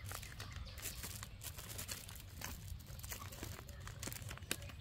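MRE plastic heater bag and packaging crinkling as they are handled: a run of irregular small crackles over a low steady rumble.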